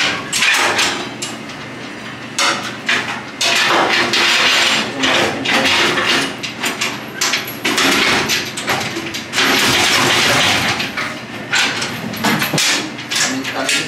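Repeated loud knocks and clatter of hard objects being handled, broken by stretches of harsh noise lasting a second or two.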